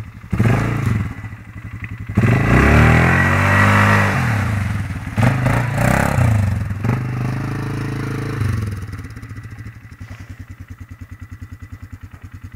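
Polaris Scrambler 500 quad's engine revving hard in bursts, its pitch rising and falling with the throttle, as it drives through mud and water. Near the end it drops to a steady, pulsing idle.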